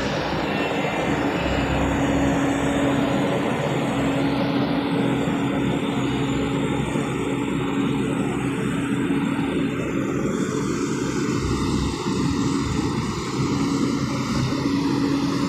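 Diesel engine of heavy earthmoving equipment running steadily: an even drone with one constant hum in it.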